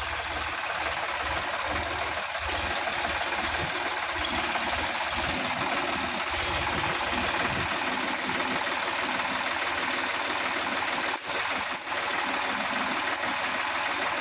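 Sonalika DI-50 RX Supreme tractor's diesel engine working steadily as the tractor drives through mud, with a low pulsing throb in the first half.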